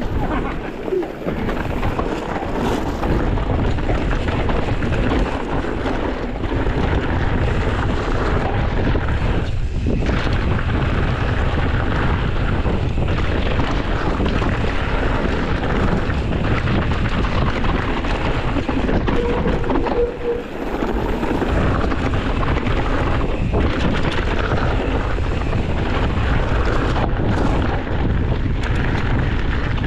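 Wind buffeting a handlebar-mounted action camera's microphone on a mountain bike descending dirt singletrack, mixed with tyre noise and the bike rattling over the trail.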